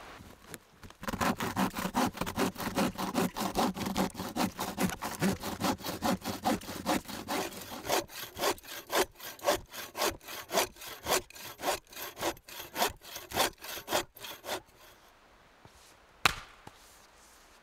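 Bow saw cutting through a snow-covered log in steady back-and-forth strokes, about two a second. Near the end the sawing stops, and a single sharp knock follows.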